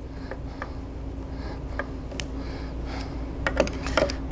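Faint, scattered clicks and taps of a Phillips screwdriver turning two screws through a plastic skimmer disc into its shaft hub, over a steady low hum.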